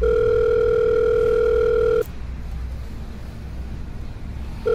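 Telephone ringback tone: the call ringing out at the other end without being answered. A steady tone sounds for about two seconds, stops for about two and a half seconds, then starts again near the end.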